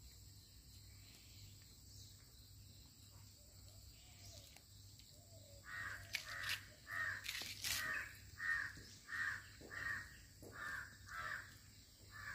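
A crow cawing repeatedly, about ten harsh caws at roughly one and a half a second, starting about six seconds in.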